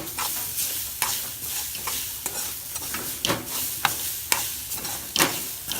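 Grated coconut with shallots, garlic and curry leaves roasting in a little coconut oil in a pan, sizzling under a steady hiss, while a utensil stirs and scrapes it in repeated strokes about twice a second. It is being stirred without pause to keep it from sticking and burning as it browns.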